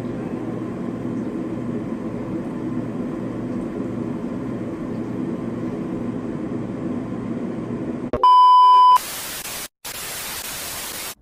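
A low, steady background noise. About eight seconds in it is cut by a loud, high beep tone lasting under a second, then a hiss of white-noise static that drops out briefly and cuts off suddenly. This is an edited-in bleep-and-static effect.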